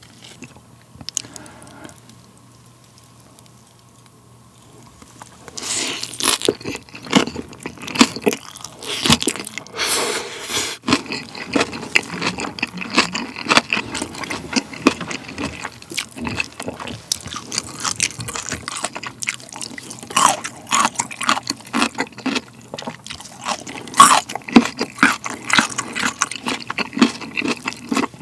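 Close-miked chewing of a mouthful of kimchi with chicken and rice: wet, crunchy cabbage crunching and mouth smacking, in dense irregular crackles that begin about five seconds in after a quieter stretch.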